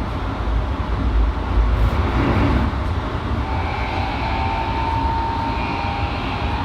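Keikyu 1453-set electric train heard from inside the car: a steady low running rumble, joined about halfway in by a steady whine from its Toyo IGBT VVVF inverter and Mitsubishi traction motors.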